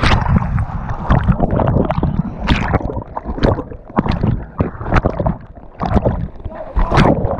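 Whitewater splashing and gurgling over a camera at the water's surface beside a capsized kayak, with a heavy low rumble and irregular sharp splashes, roughly one or two a second.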